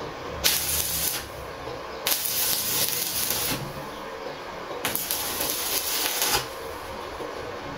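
Electric arc welder laying short weld beads on scrap steel: three bursts of hissing crackle, each about one to one and a half seconds long, with short pauses between.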